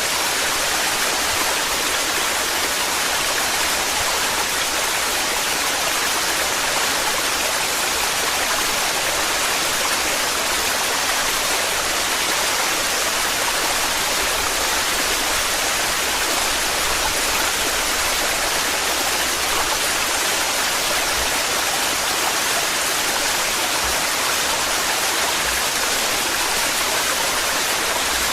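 Waterfall in heavy, torrential flow: a steady, even rush of falling water.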